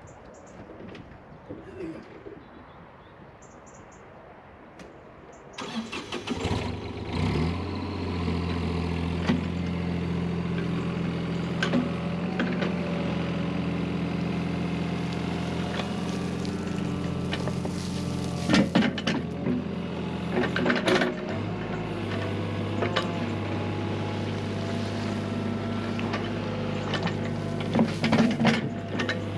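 Skid steer engine starting about five seconds in, then running steadily. Its pitch steps up later as the revs rise, with a few sharp clanks over the top.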